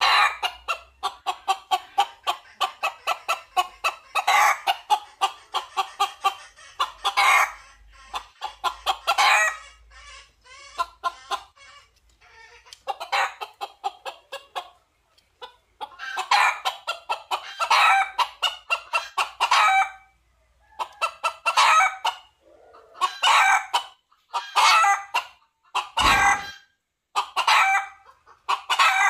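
Red junglefowl rooster calling to hens: rapid runs of clucks broken by short pauses, with one brief thump near the end.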